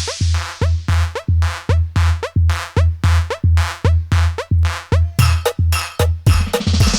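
Indonesian DJ dugem remix (electronic dance music) with a heavy, bass-laden kick drum on every beat, about two and a half beats a second. Near the end a bright rising sweep builds in.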